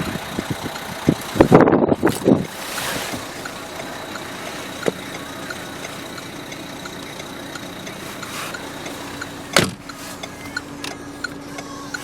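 Renault Laguna diesel engine idling, heard from the driver's seat as a steady low hum. A cluster of clicks and knocks sounds about a second or two in, and a single sharp thump comes near the end.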